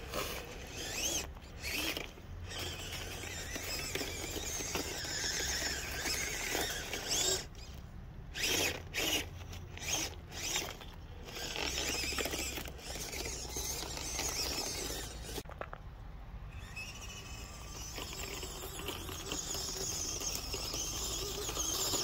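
1:18-scale FMS Toyota FJ Cruiser RC crawler's small electric motor and gears whining as it drives through piled ice pellets, the tyres crunching the ice. It stops and starts several times, with one longer pause about two-thirds of the way through.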